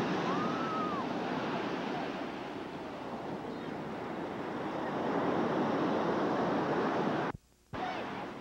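Ocean surf breaking and washing up the beach, a steady rushing hiss. The sound drops out completely for about half a second near the end.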